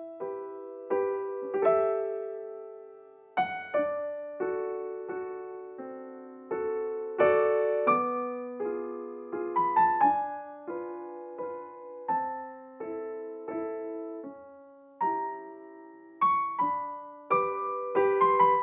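Background music: soft, slow solo piano, single notes and chords, each ringing and fading.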